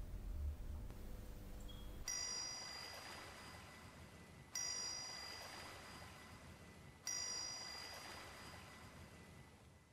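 A chime struck three times, about two and a half seconds apart, each stroke ringing out and slowly fading; a low hum before the first stroke.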